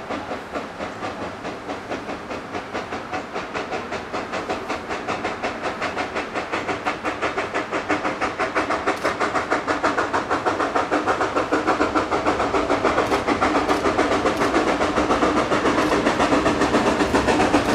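Steam locomotive working, its exhaust a rapid rhythmic chuffing with hiss, growing steadily louder as it approaches.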